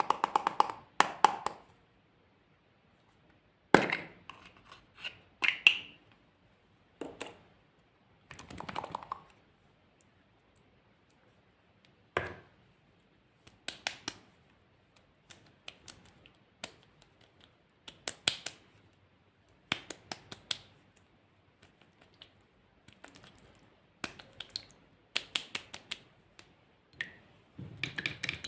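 Scattered sharp clicks and taps of small objects being handled, coming in short irregular clusters with quiet gaps between.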